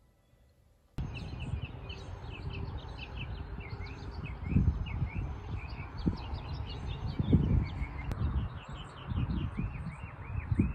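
A chorus of small birds chirping quickly and continuously in trees, beginning about a second in, with wind buffeting the microphone in uneven gusts.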